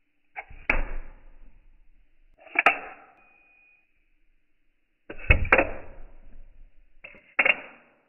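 Automatic switchblade knives firing open, four times: each a sharp spring-driven snap as the blade locks, followed by a brief rattling ring. The third firing has two quick clicks.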